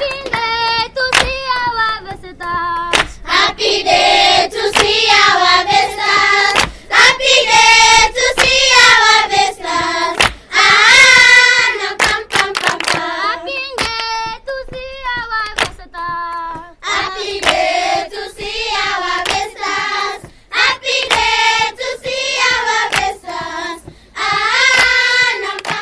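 A group of children singing together in high voices, with rhythmic hand clapping. The song comes in phrases separated by short breaks.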